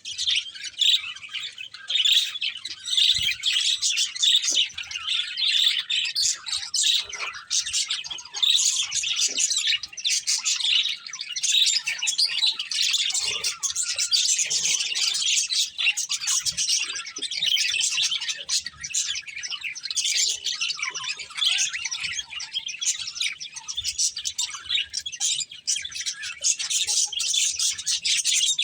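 A breeding pair of budgerigars chirping without a break: a dense stream of quick, high twittering notes.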